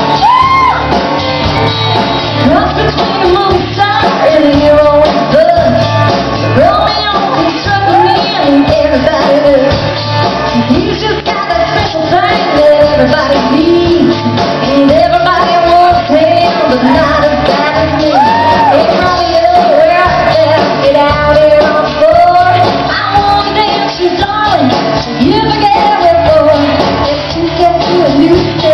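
Live band performing a song: a woman singing lead into a microphone over electric guitar, keyboard and drums.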